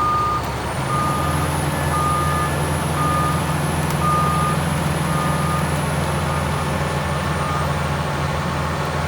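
Cat 336EL hydraulic excavator's motion alarm beeping about once a second over its Cat C9.3 ACERT diesel engine. The engine picks up load about a second in, and a high whine rises with it and eases off near the end.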